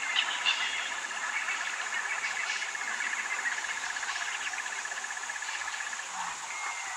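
Bush chorus of insects and frogs, a dense high chirring with a steady fast-pulsing trill on one pitch that stops about six seconds in. A few short bird chirps come near the start.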